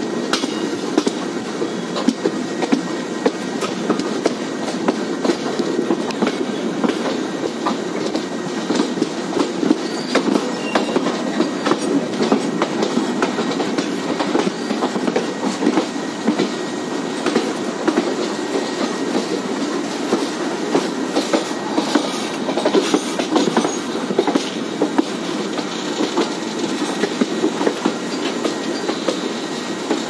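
Passenger train coaches running along the track: a steady rumble of wheels on rails, with many sharp clicks and rattles throughout.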